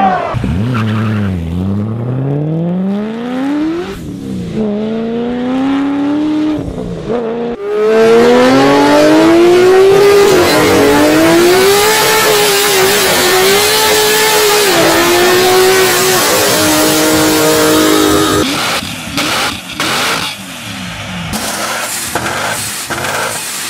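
High-horsepower tuned car engines at full throttle, in three cuts. First a Lamborghini accelerating hard, its engine pitch dropping and climbing steeply through the gears. Then, loudest, a Nissan GT-R's twin-turbo V6 revving high with its rear wheel spinning, the pitch climbing and then wavering. Near the end comes a quieter, broken-up engine sound with a few sharp cracks.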